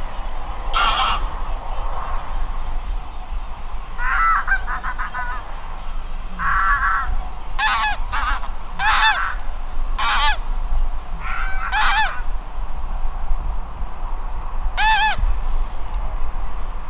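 A flock of geese flying over, honking: about a dozen scattered, separate honks over a steady low rumble.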